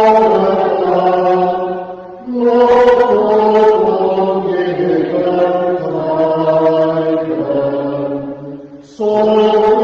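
Congregation singing a hymn in slow, long-held notes, with brief pauses between phrases about two seconds in and again near the end.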